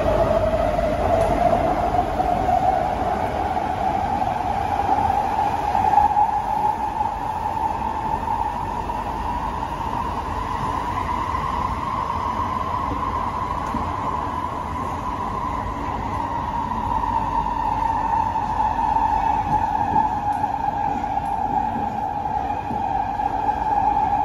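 Interior of a CSR Sifang C151A metro train running on the track: the rumble of wheels and running gear under a clear electric traction-motor whine. The whine rises in pitch over the first few seconds as the train accelerates, then levels off at running speed.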